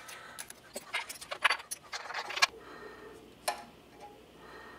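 Light metal clicks and clinks as steel shims and a cam sprocket are fitted onto a Porsche flat-six camshaft, several in quick succession over the first couple of seconds. A few single ticks follow as a straightedge and digital caliper are set against the sprocket face.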